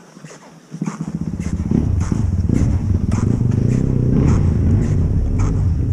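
A dirt bike engine starts suddenly about a second in and keeps running loudly and steadily, with short sharp sounds over it.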